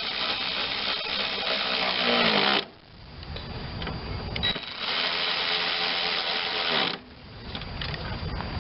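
Handheld power driver run twice for about two and a half seconds each, driving bolts home, its motor winding down at the end of each run.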